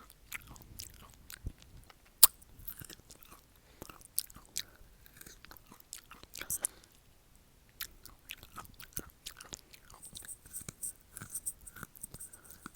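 Close-miked chewing of crisp raw pear: irregular wet crunches and mouth clicks, with one sharp, loud crunch about two seconds in.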